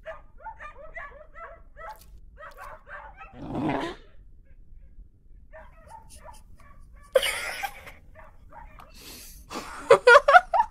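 A cartoon puppy making many short, high whimpers and yips, then a quick, louder run of yips near the end. There is also a short burst of noise about seven seconds in.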